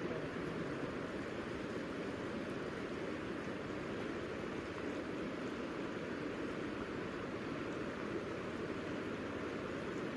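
River water flowing, a steady rush with no separate splashes or other events.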